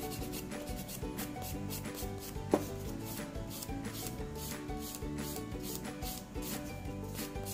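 A white nail file rasping over natural fingernails in quick back-and-forth strokes, working the surface down after the gel colour has been taken off, over soft background music. A single sharp click about two and a half seconds in.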